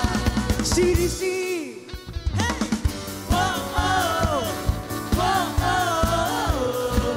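Live worship song: a male singer with a band of drums and bass. The drums and bass drop out for about a second shortly after the start, then come back in under the singing.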